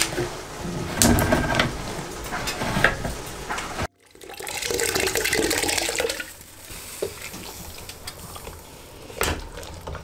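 Canned chopped tomatoes poured from the can into a stainless steel pot of browned mince: a wet, splashing rush that starts suddenly about four seconds in and fades after about two seconds. Before it, clicks and kitchen clatter; after it, a couple of soft knocks.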